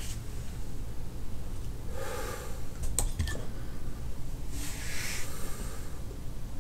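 Quiet pause with a steady low hum, a man's soft breaths twice, and a single sharp click about three seconds in.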